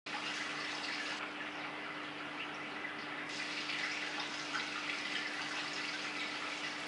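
Water circulating and splashing steadily in an aquarium, with a steady hum underneath.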